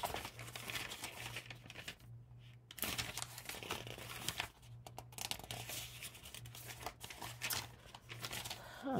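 Paper rustling and crinkling as sheets and pages are handled and leafed through, in irregular scratchy strokes, over a faint steady low hum.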